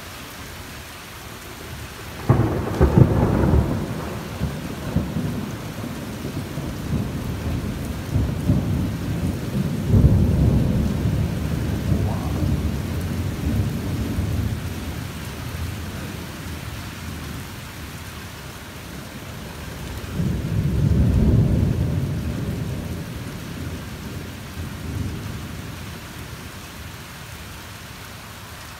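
Thunder during a thunderstorm, over steady rain: a sudden loud clap about two seconds in that rolls on into rumbling, swells again around ten seconds, and a further long rumble about twenty seconds in.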